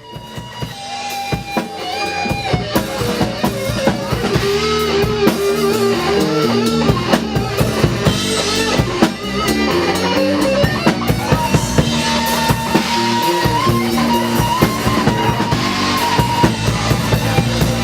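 Band music with a drum kit keeping a steady beat under guitar and other melodic instruments, with no singing.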